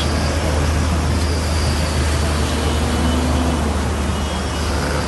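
Steady low rumble of a car driving, with road and traffic noise.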